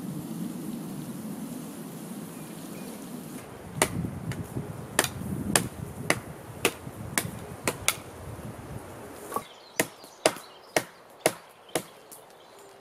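A low steady rumble, then a blade chopping into a thin wooden pole: sharp strikes about two a second, starting about four seconds in and running on to near the end.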